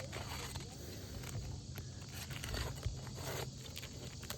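Irregular scuffing and scraping on an asphalt shingle roof as shingles are handled and stepped on, with one sharp tap a little under three seconds in.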